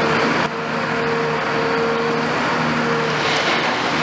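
Diesel engine of a Caterpillar 340F long-front demolition excavator running with a steady hum while it breaks up a concrete building, over a constant rushing hiss from the water spray and falling rubble.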